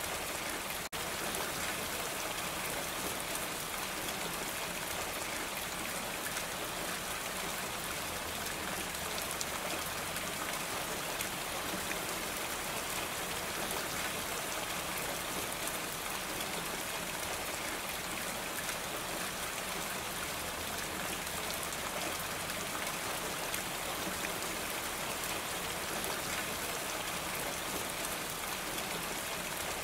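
Steady rain falling on a roof, an even dense patter with no let-up, broken only by a momentary gap about a second in.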